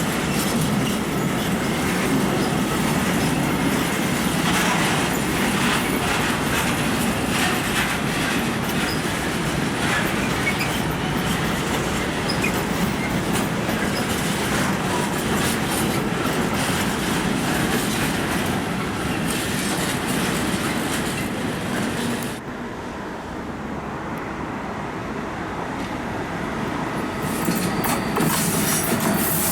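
A train rolling over the tracks: steady wheel-on-rail noise with repeated clatter over rail joints. The sound drops suddenly about 22 seconds in and builds again near the end.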